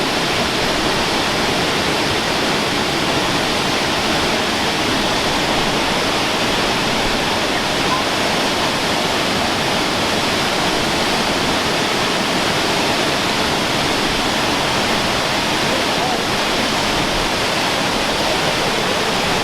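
Large waterfall pouring into its pool: a loud, steady, unbroken rush of falling water.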